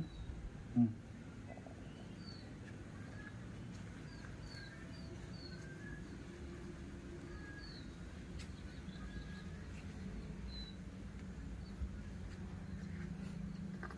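Small birds chirping faintly and sporadically in the background, short high chirps, over a low steady hum.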